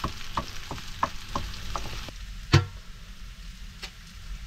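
Chopped wild kiriş greens sizzling in a frying pan while a spatula stirs them in quick, regular strokes, about three a second. The stirring stops about two seconds in, and a single sharp knock follows shortly after; the frying continues more quietly.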